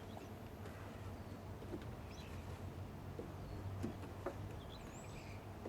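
Faint bird chirps over a steady low hum, with a few light clicks.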